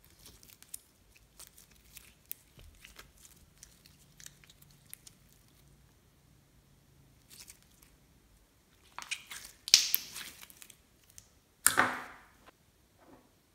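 Clear glitter slime being stretched and squeezed by hand, giving small sticky clicks and crackles, then two louder squelches near the end as it is pressed down onto a bowl of white slime.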